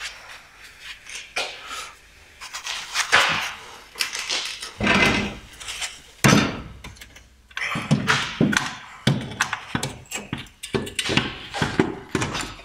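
A Skoda Felicia gearbox being lifted and worked by hand onto the engine and clutch: an irregular run of heavy thunks, metal clanks and scrapes as the casing is shifted into place.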